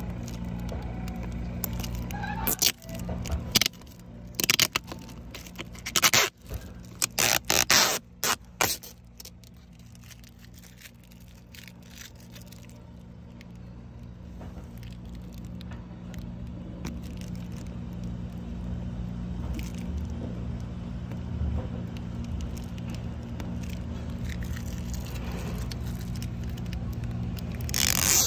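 Protective plastic film being peeled off a new car's interior door trim: crackling, tearing bursts in quick runs from about two to nine seconds in, and again near the end. A steady low hum runs underneath.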